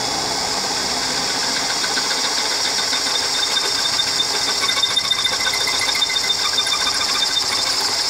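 Electric drill running steadily with a 13/32-inch bit, drilling out a steel door-hinge pin clamped in a vise. It gives a continuous high-pitched whine.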